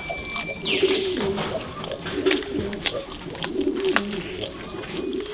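A dove cooing, a low phrase repeated about once a second, over a steady high insect drone, with scattered small clicks.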